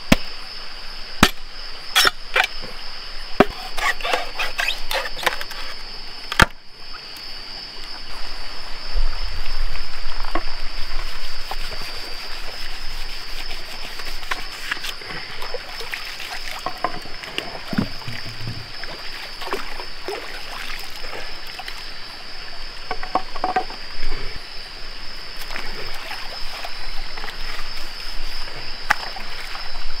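Rainforest ambience: a steady high-pitched insect drone with frogs croaking, and sharp clicks and knocks scattered through the first several seconds.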